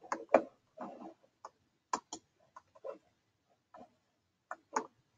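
Scattered clicks of a computer mouse, a dozen or so, several in quick pairs.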